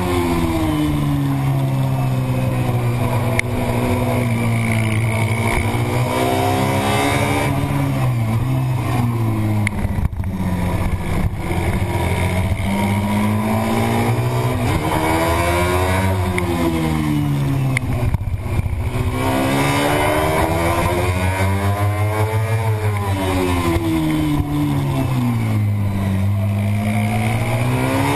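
Racing motorcycle engine heard from a camera mounted on the bike behind the fairing. Its pitch climbs and drops again and again, about every four to eight seconds, as the bike speeds up along the straights and slows for corners.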